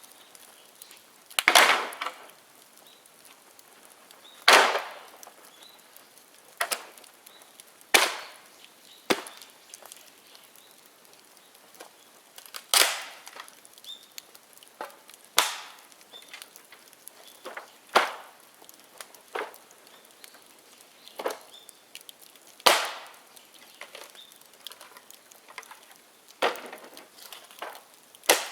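Dead bamboo in a bonfire cracking and popping as it burns: about a dozen sharp pops at irregular intervals, every one to three seconds, some trailing a brief hiss.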